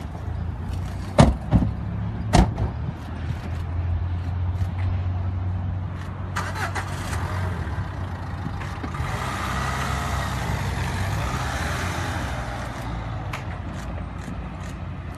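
Two car doors slamming shut about a second apart, then a car engine running steadily as the car pulls away.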